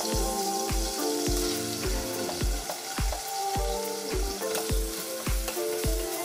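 Curry leaves and brinjal pieces sizzling as they fry in hot oil in a stainless steel pot, stirred with a ladle near the end. Background music with a steady beat and melody plays over it.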